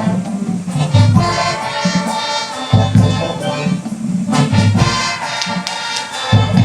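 High school marching band playing loudly: sustained brass chords over heavy bass drum and low brass hits.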